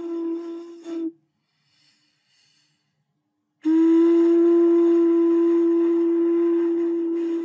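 A breathy, flute-like tone holding one steady note, which stops about a second in. After a couple of seconds of silence the same note sounds again and is held, slowly fading.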